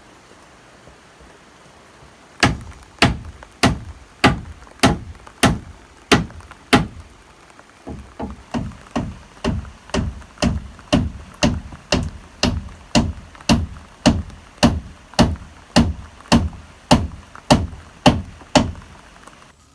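Steady, forceful blows on wood, close to two a second, in two runs with a short break between them.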